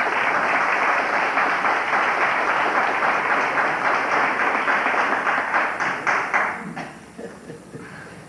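Live audience applauding, a dense spread of many hands clapping that dies away a couple of seconds before the end.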